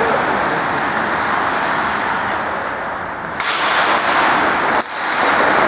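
Ice hockey game on a rink: a steady arena din with skates scraping the ice, turning brighter and hissier about three and a half seconds in, and a few sharp clacks of sticks and puck.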